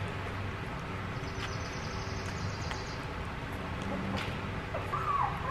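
A two-week-old Labrador puppy nursing from a milk bottle: faint sucking clicks over a steady low hum, then a brief high whimper near the end.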